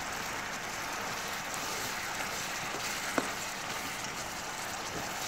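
Creamy buttermilk chicken sauce sizzling and bubbling steadily in a hot pan, with a faint click about three seconds in.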